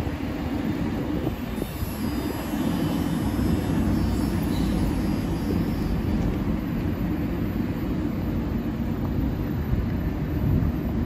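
Steady low drone of a Bombardier TVR guided rubber-tyred tram standing at the terminus platform, a little louder from about two seconds in.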